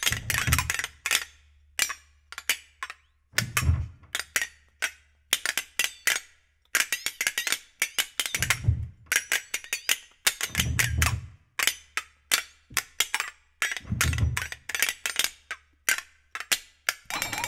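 Two flexatones played as dry percussion: flurries of sharp, irregular, accented clicks and rattles in fast, broken rhythms with short pauses between phrases. Five dull low thumps from piano pedals are spread through it, a few seconds apart.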